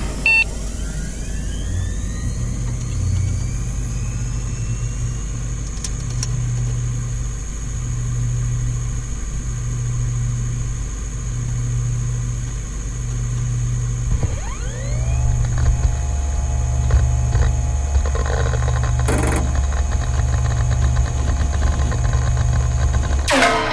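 Computer noises: a short beep, then a rising whine of drives or fans spinning up that settles into a steady high tone. Under it, a low hum pulses about once every second and a half. About fourteen seconds in, a second spin-up whine rises and levels off lower, with scattered clicks of drive access.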